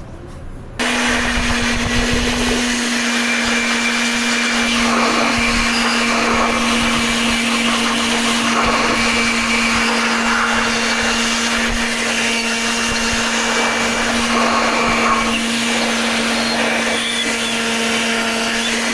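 An electric motor, like that of a power tool or blower, running at a steady speed with a constant whine and hiss. It starts abruptly about a second in and cuts off near the end.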